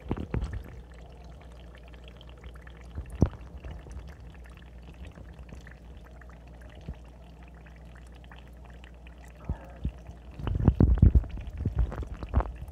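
Steady trickling, pouring water in the water section of a paludarium. A couple of single knocks, then a cluster of knocks and rustles about ten and a half seconds in, the loudest part.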